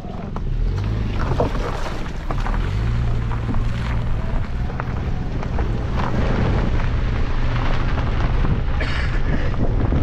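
Car engine hum with road and wind noise, heard from inside a moving car.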